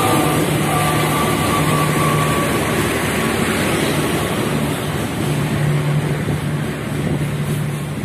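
Passenger train rushing past close by: the CC 206 diesel-electric locomotive goes by, followed by its coaches, with a loud, steady roar of wheels on rail and a low engine hum that comes and goes.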